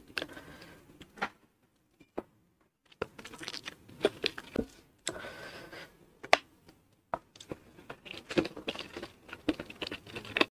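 Close-miked crackling and crisp clicks as fingers gather rice and crispy fried anchovies into a handful, in irregular bursts.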